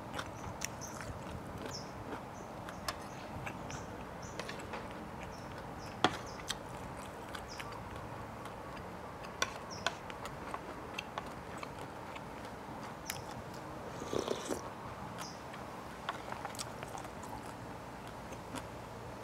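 Close-miked chewing and mouth sounds of someone eating papaya salad, with scattered sharp clicks of a metal spoon against the plate.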